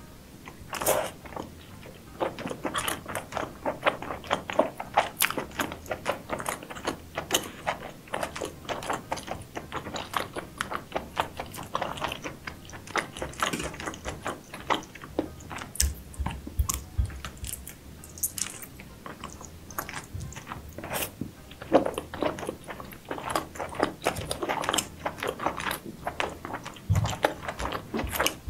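Close-miked eating sounds of seafood being bitten and chewed, with many short, irregular clicks and crackles.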